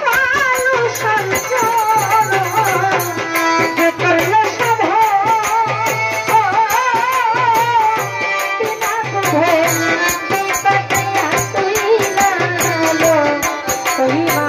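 Live Bengali folk music: a wavering, vibrato melody line over a steady hand-drum beat.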